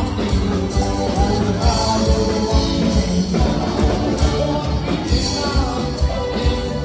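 Live band playing with a steady drum beat and singing.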